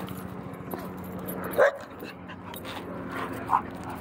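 A dog barks twice, short calls about two seconds apart, the first a second and a half in and the second near the end.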